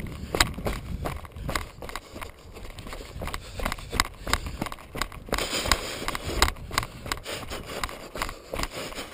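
Rattling and irregular knocks of a bike ridden fast over a rough, stony dirt trail, tyres crunching on loose gravel, over a low rumble of wind on the microphone.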